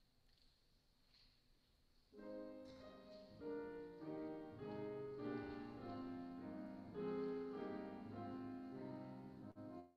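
Grand piano starts playing about two seconds in, chords under a melody, after faint room tone. The sound breaks off abruptly at the very end.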